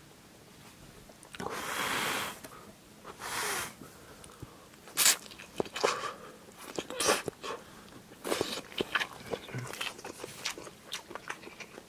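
A person slurping thin tonkotsu ramen noodles: two long slurps early on, then chewing and a run of short, wet slurps and smacks.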